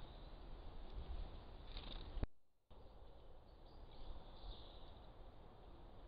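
Faint garden background recorded through a camera trap's microphone, mostly an even hiss, with a sudden drop-out to silence just over two seconds in where one triggered clip ends and the next begins.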